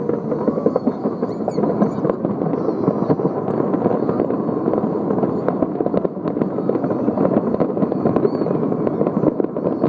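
Fireworks display going off in a steady, unbroken stream of rapid pops and bangs.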